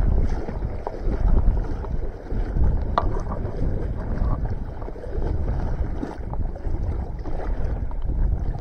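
Strong wind buffeting the microphone: a continuous rough, low rumble, with a few faint clicks from the angler's spinning reel being cranked.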